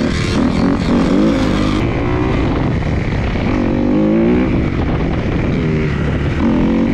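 Off-road vehicle engine running and being revved, its pitch rising and falling several times.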